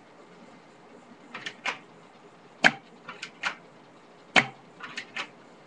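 Airsoft M1911 pistol firing twice with sharp cracks about two seconds apart. Before each shot, and again near the end, come two softer clicks in quick succession as the pistol is readied for the next shot.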